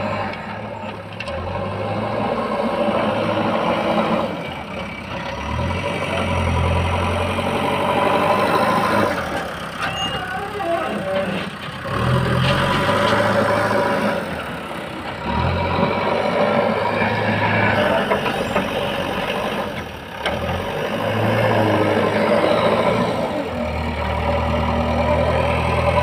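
Diesel engine of a JCB 3DX backhoe loader running as it digs and lifts with its loader bucket, its sound swelling and easing every few seconds with the load.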